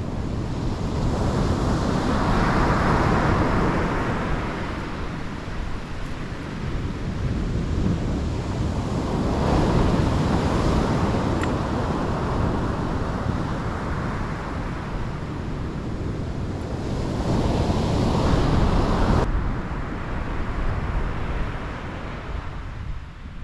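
Surf breaking on the beach, the waves swelling and washing in three times, about every seven to eight seconds. Wind buffets the microphone with a steady low rumble.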